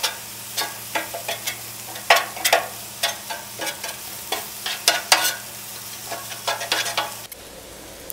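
Rice frying and sizzling on a Blackstone steel griddle top, with irregular scrapes and clacks of a metal spatula as it is stirred and turned; the clacking stops about seven seconds in.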